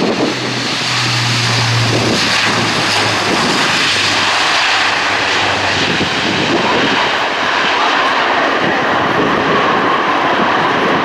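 Airbus A400M's four TP400 turboprop engines at takeoff power, a loud steady propeller drone as the airlifter rolls down the runway and climbs away. A low propeller hum stands out in the first few seconds.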